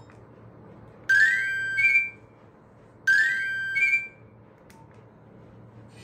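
Nokia 1280's built-in alert tone previewed through its small speaker: a quick rising run of electronic beeps ending in a short trill, played twice about two seconds apart.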